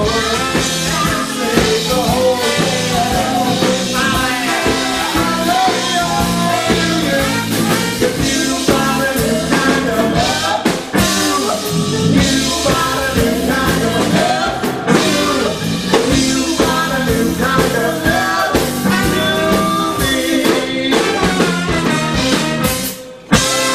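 Live band playing while a man and a woman sing a duet into microphones. The music cuts out briefly near the end.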